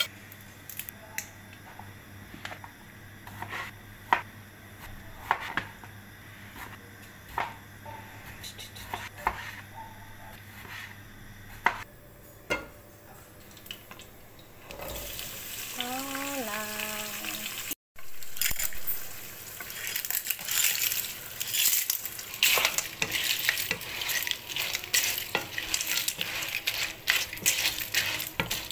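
Mussel shells clicking now and then as they are cleaned by hand over a plastic colander. About halfway through, a hiss starts, and after a brief break, clams, mussels and cherry tomatoes sizzle and crackle in a hot pan, with shells clattering as a wooden spatula stirs them.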